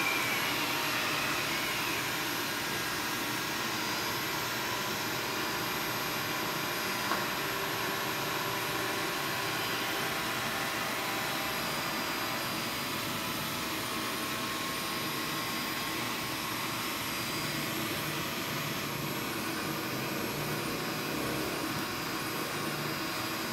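Steady whirring hum of a running fan motor, even throughout, with a few faint steady tones over it.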